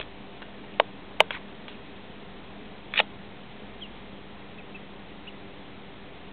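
Duckling peeping: a few short, sharp peeps about a second in and again at three seconds, then fainter scattered peeps.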